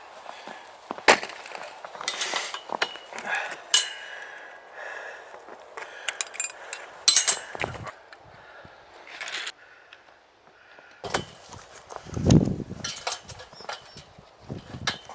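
Scattered clicks, knocks and metallic clinks as trampoline parts are worked loose and handled, with a duller thud about twelve seconds in.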